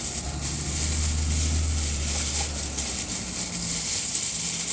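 Takeout food packaging handled inside a parked car, over a low vehicle rumble that fades out about three seconds in.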